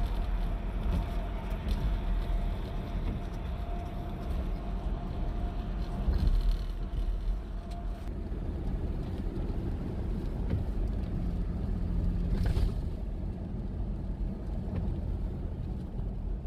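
Car driving at highway speed, heard from inside the cabin: a steady rumble of road, tyre and engine noise, with a faint steady whine that fades out about halfway through and a brief swell of rushing noise near the three-quarter mark.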